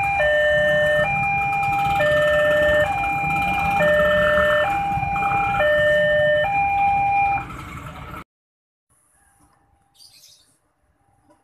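Electronic level-crossing warning alarm sounding a two-tone hi-lo signal, each tone held about a second, over the low rumble of waiting traffic. It cuts off about eight seconds in, leaving near silence.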